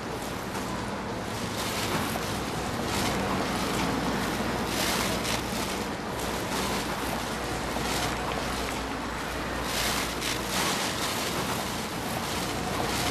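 Busy city street ambience: a steady wash of traffic noise with a low hum and surging hiss from passing vehicles.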